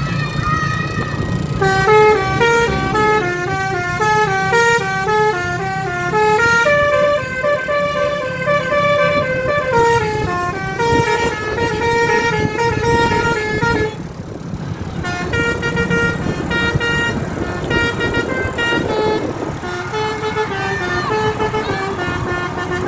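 Bus telolet (basuri) musical horn playing a quick tune of stepping notes over the bus engine running underneath. The tune breaks off for about a second two-thirds of the way through, then starts again.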